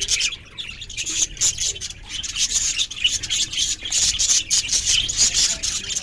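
A flock of budgerigars chattering: a dense, continuous stream of rapid high chirps and warbles, a little quieter in the first couple of seconds and busier after.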